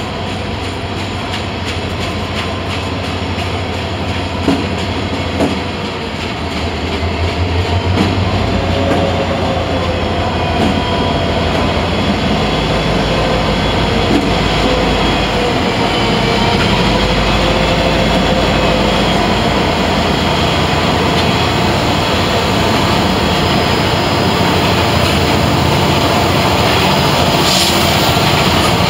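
Norfolk Southern diesel locomotives and freight cars rolling past close by: a deep engine rumble under steady wheel-on-rail noise, with a wavering high squeal from the wheels. It gets louder a few seconds in as the locomotive draws level.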